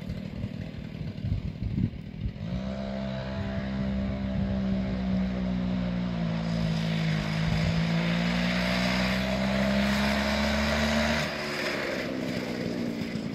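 Two-stroke chainsaw engine of a home-built mini go-kart coming up to high revs about two seconds in and held there, its pitch sagging a little and rising again. Near the end the revs drop off suddenly.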